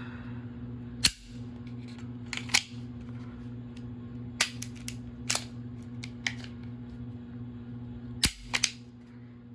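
Sharp clicks and clacks, about eight spread unevenly, from a compact Smith & Wesson Bodyguard 2.0 .380 pistol and its magazines being handled. The sharpest come about a second in and again near the end.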